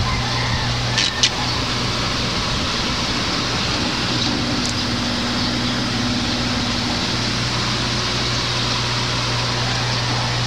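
A steady mechanical whir with a low, even hum, with a few light clicks about a second in.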